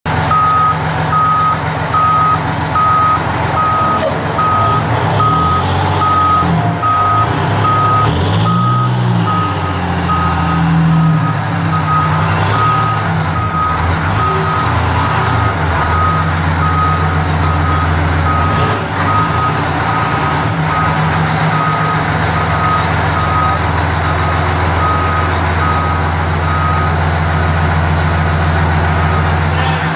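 Fire engine reversing: its backup alarm sounds a steady run of evenly spaced high beeps over the low running of the truck's engine, which rises and falls in pitch for a few seconds as it manoeuvres.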